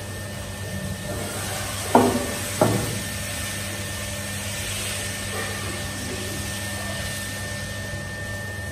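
A metal ladle knocks twice against the cookware about two seconds in, then scrapes softly as it spreads pesarattu batter in circles on a non-stick pan. A steady hum runs underneath.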